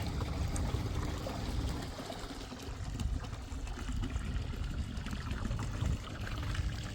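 Water pouring and trickling, a continuous splashing wash of water.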